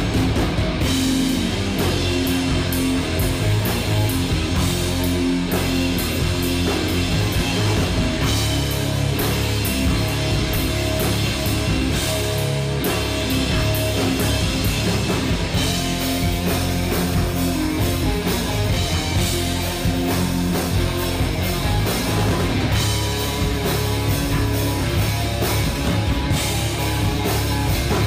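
Background rock music with guitar and drums, playing steadily.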